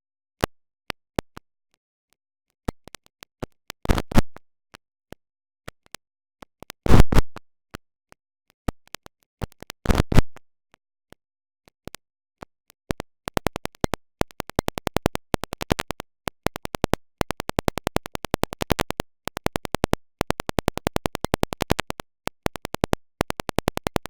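Android alarm sound chopped and stuttered in a YTPMV edit. Scattered short clicks and three longer bursts give way, about halfway through, to a fast run of stutters repeating many times a second.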